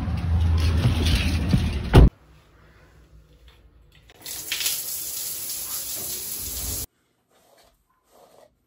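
Rumbling, wind-buffeted noise on the microphone for about two seconds, ending in a sharp knock. After a quiet moment, a shower turned on at its wall valve runs with a steady spray of water for under three seconds and cuts off suddenly.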